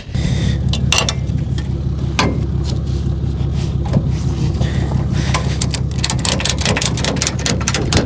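A vehicle running: a steady low engine and road rumble that starts abruptly, with many sharp clicks and rattles over it, thickest in the last few seconds.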